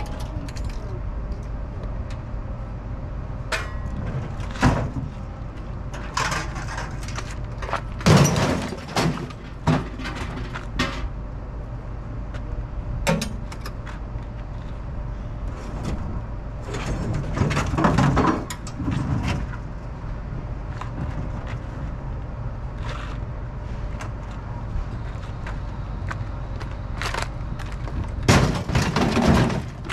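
Pieces of scrap clattering and banging as they are pulled from a pickup truck bed and thrown onto a scrap pile, in several separate crashes, the biggest about eight seconds in and again near the end, over a steady low machinery drone.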